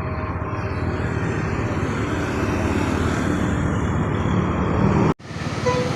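Steady rumble of a passing bus's engine and tyres, with no horn sounding; it breaks off abruptly about five seconds in, then similar traffic noise resumes.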